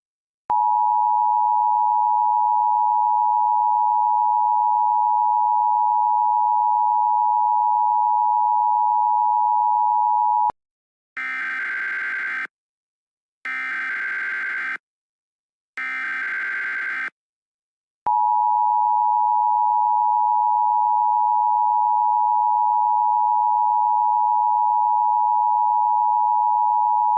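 Emergency Alert System broadcast signals: a steady attention tone for about ten seconds, then three short bursts of SAME header data about a second apart, then the steady attention tone again.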